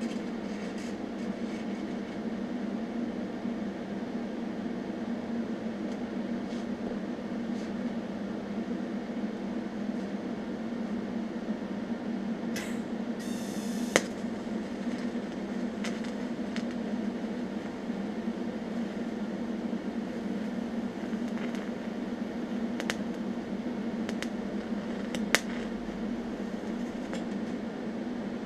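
TIG welder running with a steady electric hum as a bead is laid on cast iron, with a few sharp ticks and a short hiss about 13 seconds in.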